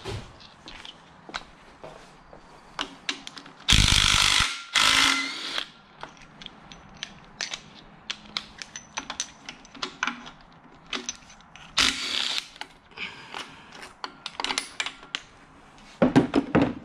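Hand tools and a socket ratchet clicking and clattering while the timing chain tensioner bolts are taken off a Honda L15B7 engine. There is loud metal clattering about four and five seconds in and again near the end.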